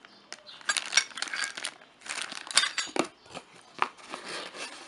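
Packaging and included parts being handled: irregular rustling and crinkling, with sharp clicks and small clinks.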